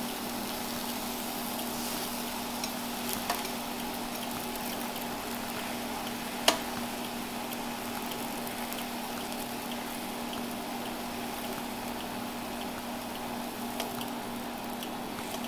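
Pancake batter and butter sizzling gently in a frying pan on a hot plate, a steady soft hiss over a low steady hum. A sharp click about six and a half seconds in, with a few fainter taps, as the measuring cup touches the pan.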